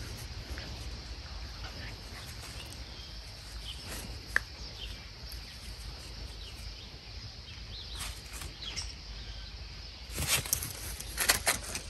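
Two dogs playing on a grass lawn, a puppy and an adult dog, scuffling in the grass with a burst of rustling and knocking about ten seconds in. Faint bird chirps sound over a steady outdoor background.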